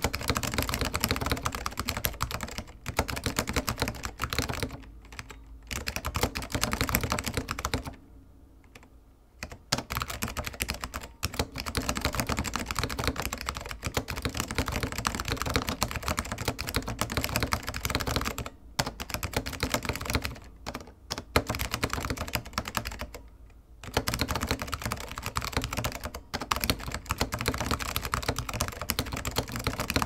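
Mechanical keyboard with SKCM Orange Alps switches, DSA Granite keycaps, a metal Alps plate and an acrylic sandwich case, typed on in a fast run of clacking keystrokes. The typing stops briefly a few times, longest for about a second and a half around eight seconds in.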